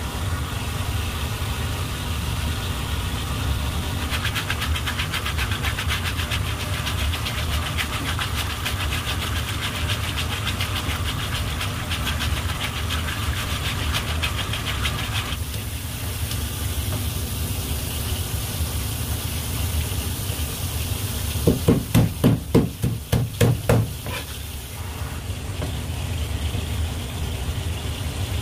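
Hose water spraying onto a gutted black sea bream as gloved hands rub it clean, with the spray hissing strongest from about four seconds to fifteen seconds, over a steady low engine hum. Past twenty seconds, a quick run of about eight loud knocks.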